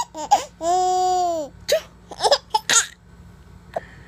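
Baby laughing: short giggles, one long, high squeal that rises and falls about half a second in, then a few more short giggles.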